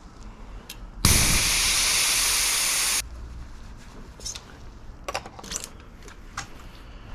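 Air hissing out of a bicycle tubeless tyre's valve for about two seconds as the tyre is let down, starting and stopping suddenly, followed by a few light clicks of handling.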